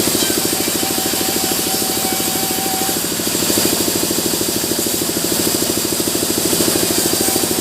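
Sawmill machinery running steadily with a rapid, even chugging pulse. A faint thin whine sounds for the first few seconds.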